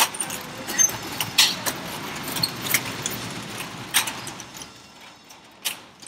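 Folding metal security gate being pulled along its track across a storefront, its metal panels rattling and clicking as they slide, with a sharp click near the end.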